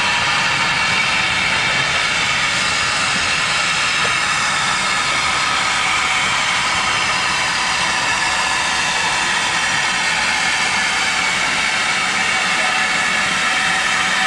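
GWR Manor class 4-6-0 steam locomotive No. 7822 drawing slowly into a station with its train, a steady loud hiss with high ringing tones over it.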